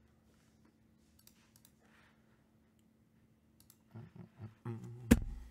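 Faint computer mouse clicks over near silence. About four seconds in, a louder stretch of voice-like pitched sound begins, with one sharp hit about five seconds in.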